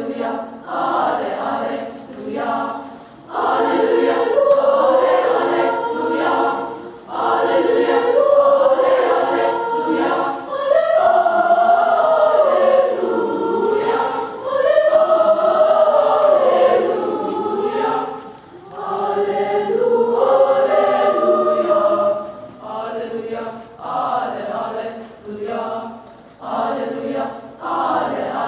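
Three-part mixed middle school choir singing a Latin setting a cappella. The phrases swell to long held notes in the middle, then break into shorter, softer phrases near the end.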